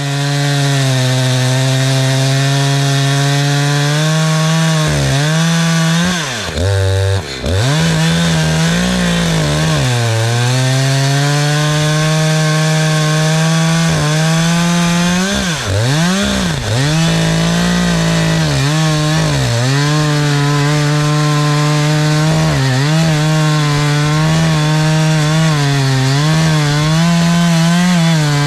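Gas chainsaw with a 20-inch bar and a newly sharpened chain, running at full throttle while cutting through a big log round. Its pitch dips sharply several times as the chain bogs under load, most deeply about six to seven seconds in, then recovers.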